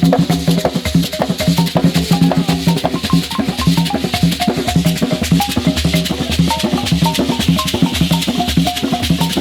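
Ugandan traditional instrumental music: drums and shakers keep a fast, steady rhythm while a pitched instrument plays quick runs of short notes over a low sustained tone.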